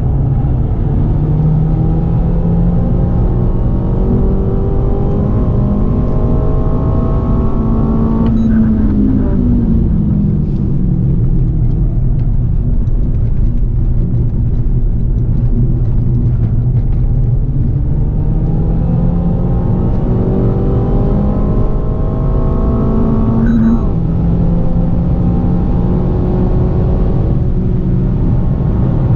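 Renault Mégane RS 280's turbocharged four-cylinder engine heard from inside the cabin, pulling hard with the revs climbing, under a constant road and tyre rumble. About 8 s in the engine note drops abruptly and sinks for a few seconds as the car slows. It then runs low, climbs again and drops sharply once more near the 24-second mark before rising again.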